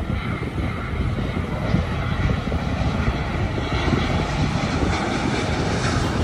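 Airbus A350-900's Rolls-Royce Trent XWB turbofans on final approach, a steady jet rush over a deep rumble. The higher hiss grows stronger in the second half as the aircraft draws nearer.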